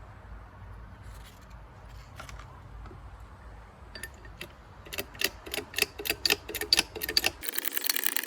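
A run of sharp mechanical clicks, scattered at first, then about four a second and growing louder from about four seconds in. Near the end they give way to a harsher, denser rasping noise.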